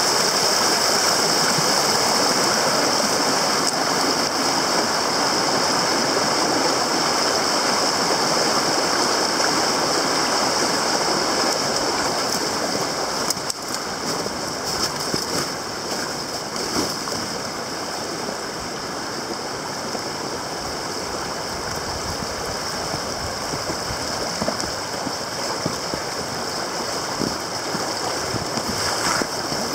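Small river rapids rushing over rocks: a steady rushing of water, quieter after about thirteen seconds.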